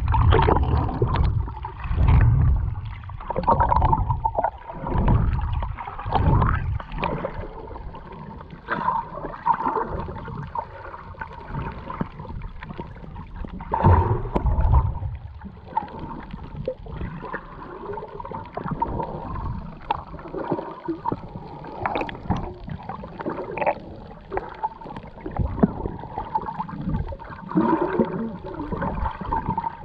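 Underwater sound on a GoPro while snorkeling: low rushing and gurgling of water against the camera, swelling and falling every second or two.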